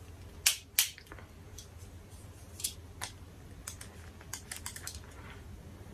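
An SD card's plastic packaging being worked open by hand, giving sharp plastic clicks and crackles: two loud ones near the start, then scattered lighter clicks with a quick run of them a little past the middle.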